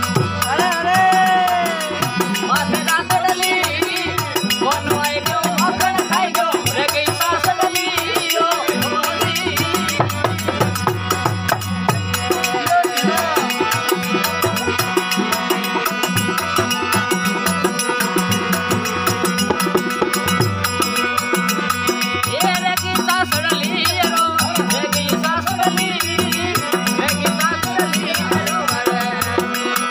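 Rajasthani desi bhajan music: harmonium chords held over the strummed drone of a tandoora, with a steady beat. A man's singing voice comes in and out.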